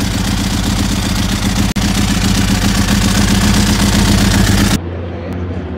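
Ducati 996R's V-twin engine idling steadily and loudly. The sound drops abruptly to a much quieter, duller engine sound about a second before the end.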